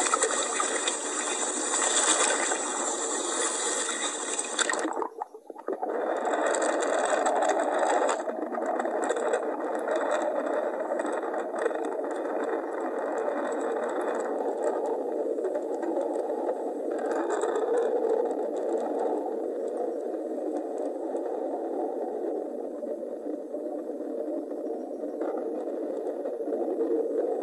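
Steady rushing water noise picked up by an underwater camera, with a brief dropout about five seconds in.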